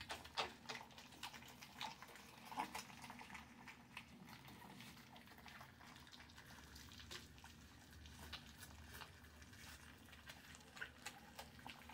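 Faint wet lapping and smacking of a litter of four-week-old puppies eating soaked kibble mush from a stainless steel pan, heard as many small irregular clicks.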